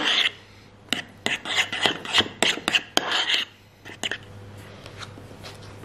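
A spoon clinking and scraping against a dish: a quick run of clicks lasting about two and a half seconds, then only a faint steady hum.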